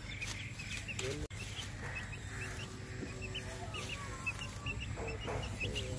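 Aseel chick peeping in short high cheeps, several in quick succession over and over, with low clucking from the Aseel hen beside it.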